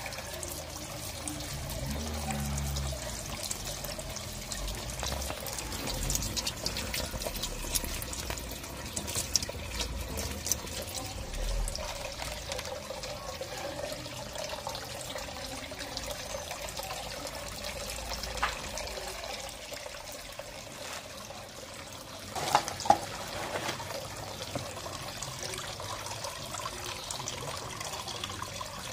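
Water pouring and trickling steadily into a fish hatchery tank, with a couple of sharp knocks about three-quarters of the way through.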